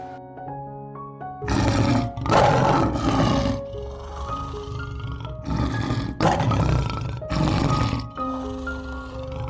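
A large animal roaring, about five rough calls in a row, over light background music.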